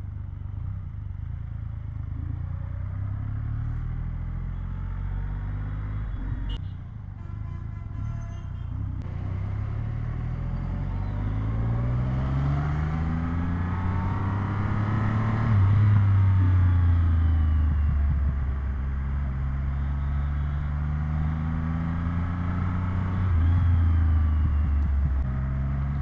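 Triumph Rocket 3 R's 2,458 cc inline-triple engine under way, low and steady at first, then rising in pitch as it accelerates to its loudest about two-thirds in, easing, and climbing again before holding steady near the end.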